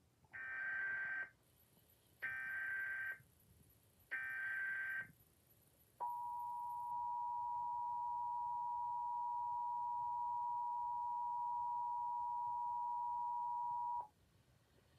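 Emergency Alert System broadcast tones: three roughly one-second bursts of buzzing SAME header data, then the EAS two-tone attention signal held steady for about eight seconds before cutting off abruptly.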